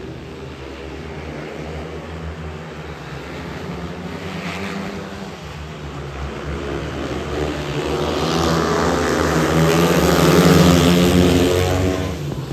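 Four 500cc single-cylinder speedway bikes racing round the track at full throttle. The engines grow louder as the pack comes round and passes close by about ten seconds in, then begin to fade.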